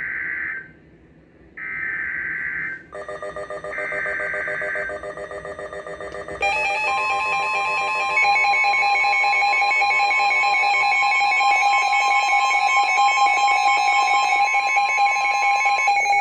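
NOAA Weather Radio Emergency Alert System tones: three short screeching bursts of SAME header data, joined about three seconds in by a fast-pulsing electronic beep. From about six seconds in a loud, steady alert tone follows, signalling a severe thunderstorm warning.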